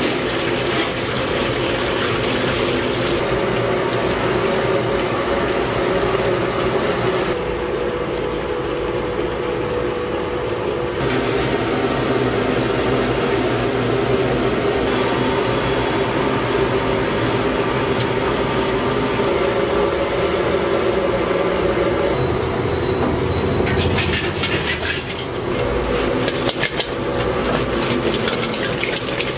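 Battered chicken pieces deep-frying in a large iron kadai of hot oil: a steady, loud sizzle and rumble. Near the end comes a run of metal clatter and scraping as the skimmer works the pan.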